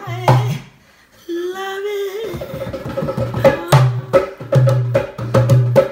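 Hand-played dhol drums: a few strokes, a short break, a held sung note of about a second, then a steady rhythm of sharp slaps over deep bass strokes.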